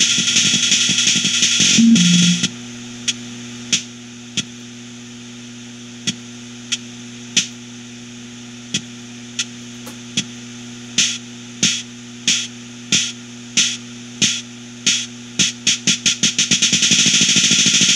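Improvised experimental electronic music. A dense noisy texture cuts off about two and a half seconds in, leaving a low steady synthesizer drone under sharp percussive clicks. The clicks come sparsely at first, then speed up until they run together into a continuous noise near the end.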